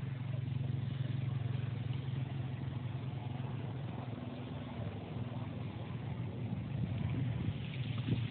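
An engine running steadily at low speed, giving a constant low hum.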